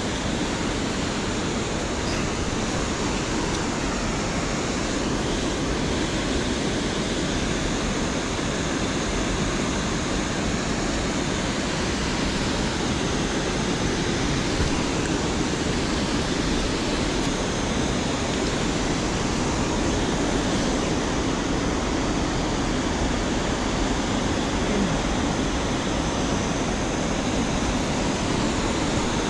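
Steady rushing of river water pouring over a dam spillway, an even, unbroken wash of falling water.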